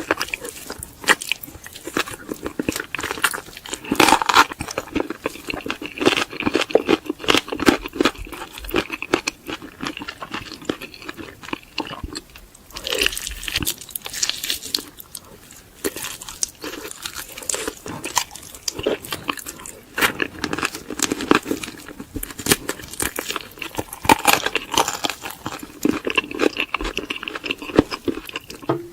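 Close-miked eating of crispy fried chicken: repeated biting and chewing with continuous crunching and crackling.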